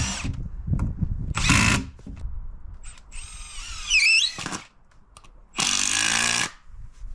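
Cordless drill running in four short bursts of about half a second to a second and a half each, its pitch wavering during the longest run.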